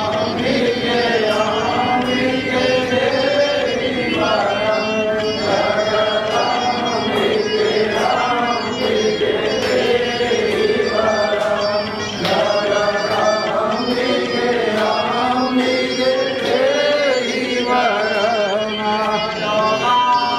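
Devotional Hindu chant-like singing with instrumental accompaniment, a continuous melodic vocal line over a steady beat of light strikes.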